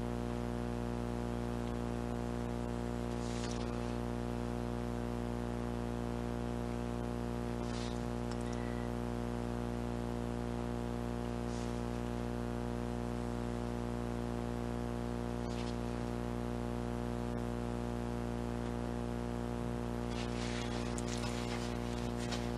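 A steady low hum holding several unchanging tones throughout. Over it come a few faint scrapes and clicks, more of them near the end, as a tool works thick gloss house paint on a canvas.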